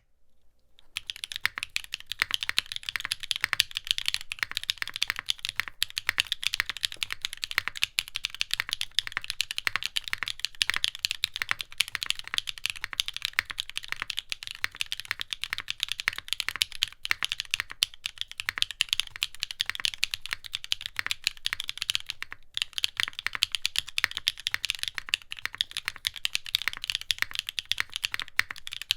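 Fast, continuous typing on a Neo60 Cu 60% mechanical keyboard with a heavy brass case, aluminium plate, no foam and lubed Gateron Sage linear switches. It makes a dense stream of crisp keystroke clacks that fades in about a second in.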